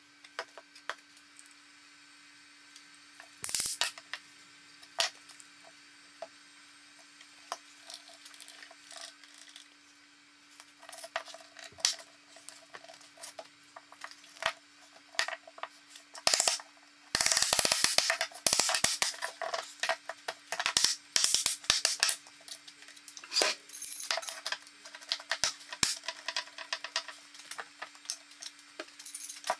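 Wooden frame parts with glued mortise-and-tenon joints being knocked together and set down on a workbench: scattered sharp knocks and clatter, then a dense run of clicks and rattling about two-thirds of the way in as bar clamps are fitted and tightened. A faint steady hum runs underneath.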